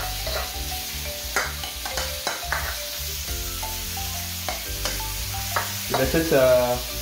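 Shrimp sizzling in a hot wok while a plastic spatula stirs them, with frequent sharp clicks and scrapes of the spatula against the pan. The shrimp are being fried until the last of their marinade liquid cooks off.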